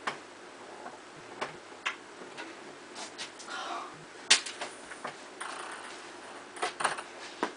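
Light clicks and taps at irregular intervals from a ping-pong ball on a polished wooden table top as it is put down and batted about by a cat. The sharpest tap comes about four seconds in, with a quick cluster near the end.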